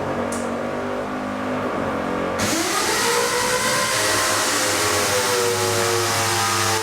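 A motor hums steadily. About two and a half seconds in, the sound switches abruptly to a motor spinning up in a rising whine that then holds steady.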